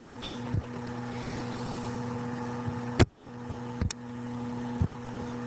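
Steady electrical hum with a low buzz, broken by three sharp clicks about three, four and five seconds in.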